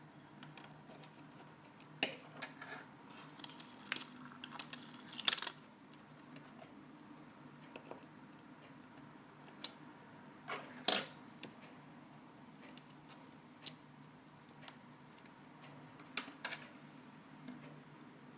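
Small metal repair tools clicking and tapping against a phone's parts during reassembly: a quick cluster of clicks in the first few seconds, then scattered single ticks, the loudest about eleven seconds in.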